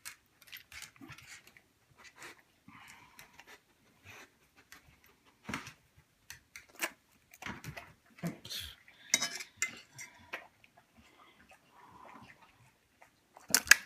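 Scattered short clicks and clinks of a metal fork as rice is fed from it to dogs, with a dense run of clicks near the end.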